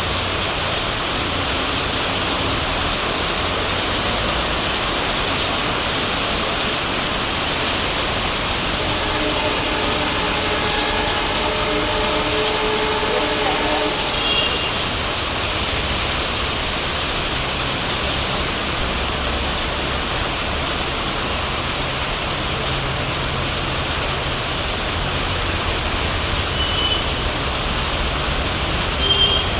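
Heavy rain falling steadily, a loud even hiss. Faint low rumble joins from about halfway, with a brief faint hum before it.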